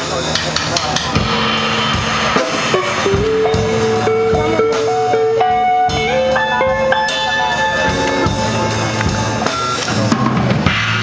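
Live blues band playing an instrumental passage: drum kit and bass keep a steady beat under long held lead notes that bend slightly in pitch.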